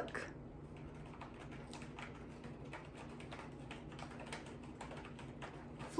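A cat scratching on its scratcher: a quick, irregular run of faint scratchy clicks.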